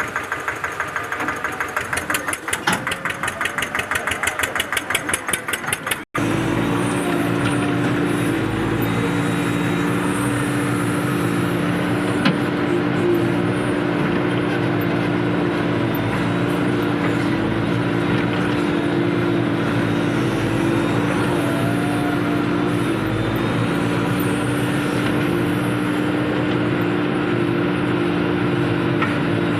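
Diesel engine of heavy machinery running: a fast, even chugging for about six seconds, then, after a sudden cut, a steady engine sound at a constant pitch.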